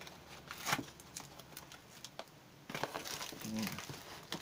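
Bubble wrap and cardboard box flaps crinkling and crackling as hands open a packed box, with scattered crackles that grow busier and louder about three seconds in.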